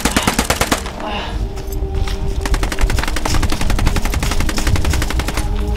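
Automatic gunfire in rapid bursts: a short burst at the start, then a longer stretch of fast fire from a little past two seconds in until near the end.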